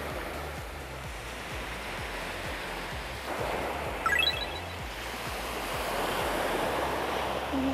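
Small waves breaking and washing up a sand beach, the surf swelling twice. About four seconds in, a quick run of high rising beeps cuts through briefly.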